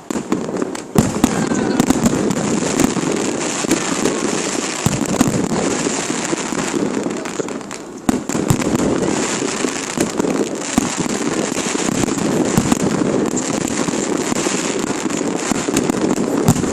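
Fireworks display going off: a dense, continuous crackle thick with sharp bangs and pops, easing briefly about eight seconds in before building again.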